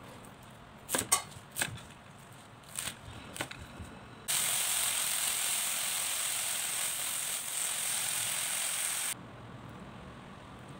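A few crisp snaps as water spinach (morning glory) stems are broken by hand. About four seconds in, a loud, steady sizzle of the greens stir-frying in a very hot pan begins, and it cuts off abruptly about nine seconds in.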